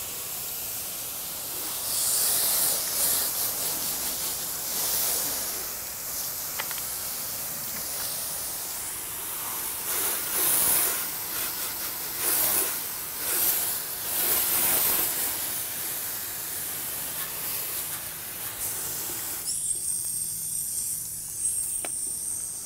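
Garden hose spray nozzle hissing as a jet of water rinses hull cleaner off a boat's hull. The hiss rises and falls in surges as the spray moves, then stops near the end.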